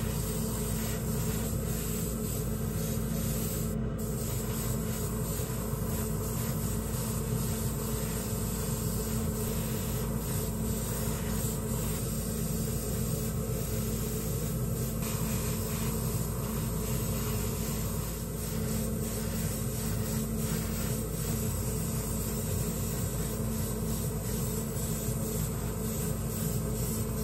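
Gravity-feed airbrush spraying paint: a steady airy hiss, with a steady low hum underneath.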